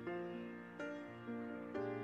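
Slow, gentle instrumental background music, with new notes sounding about once a second.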